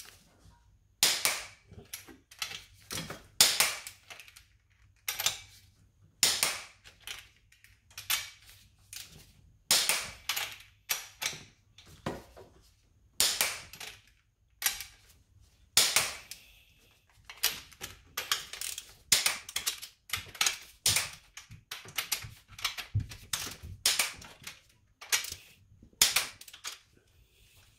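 Ratchet wrench clicking in quick runs, a new run every second or so, as the head bolts of a Toyota 2AZ engine are tightened down on the new head gasket.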